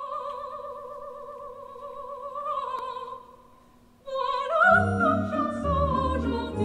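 Operatic singing: a high note held with vibrato fades out about three seconds in, and after a short pause a singing voice comes in over an orchestral accompaniment.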